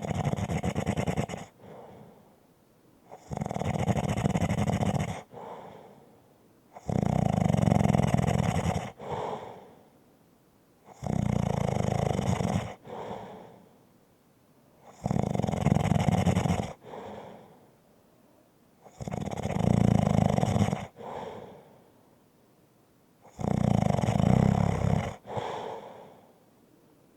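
Light, rumbling snoring in a steady rhythm, about one snore every four seconds. Each loud snore lasts about two seconds and is followed by a shorter, softer breath.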